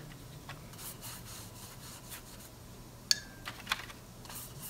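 Wet watercolour brush stroking across cold-press watercolour paper: a run of soft, scratchy brushing strokes. A sharp click with a short ringing tone about three seconds in.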